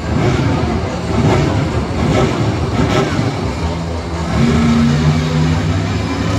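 Monster truck engine revving hard, settling into a steady held pitch about four seconds in.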